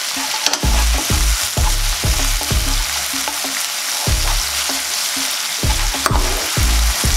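Chopped green onion and bacon sizzling in oil with soy sauce and sugar in a frying pan. A spatula stirring them scrapes and knocks against the pan over and over.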